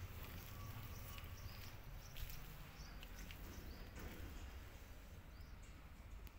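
Faint outdoor ambience: short, high chirps about once a second over a low steady rumble, with a few faint clicks.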